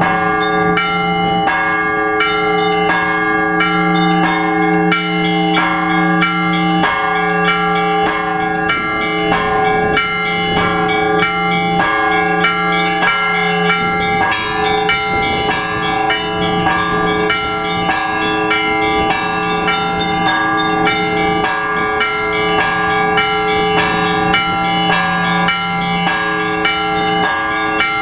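Orthodox church bells rung together in a fast, continuous peal: smaller bells striking a few times a second over a deep bell that keeps ringing underneath.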